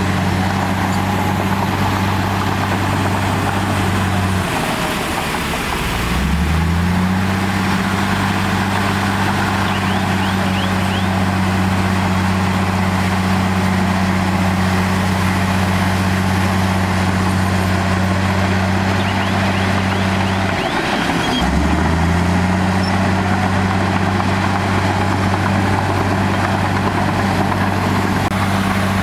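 Diesel engine of heavy earthmoving equipment running at steady revs. Twice, about four and a half seconds in and again about twenty seconds in, the revs drop sharply and climb back up within a second or so.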